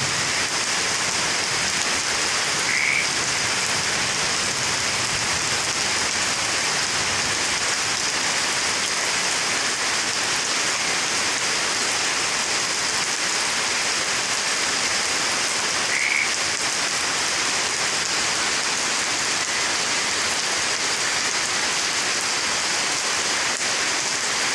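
Steady heavy rain, a dense even hiss with no let-up, with a brief high chirp about three seconds in and again about sixteen seconds in.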